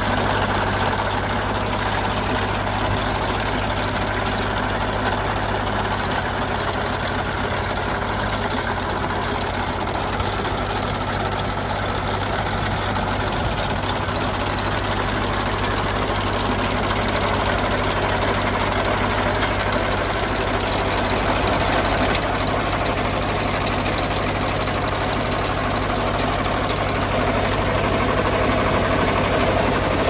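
A Case 360 trencher's engine running steadily as the machine is operated, with an even, continuous sound throughout.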